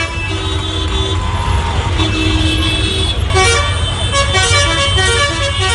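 Dense city road traffic: many vehicle horns honking over one another, with long held blasts early on and a string of short overlapping toots later, over the steady rumble of engines.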